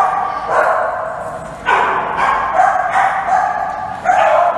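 Dogs barking repeatedly, a fresh bark about every second.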